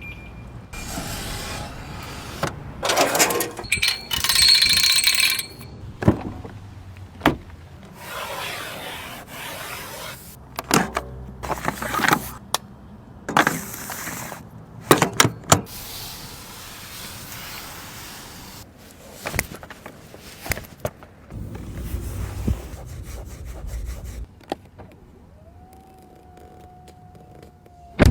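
A series of close-up Rolls-Royce sounds: sharp clicks and knocks, stretches of rubbing and scraping noise, the loudest a few seconds in, and near the end a steady whine lasting a few seconds.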